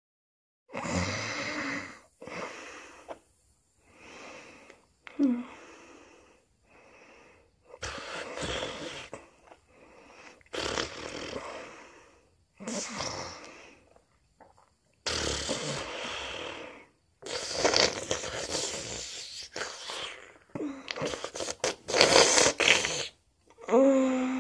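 A sleeping person's snoring: loud snoring breaths in an uneven string, one every second or two, starting about a second in.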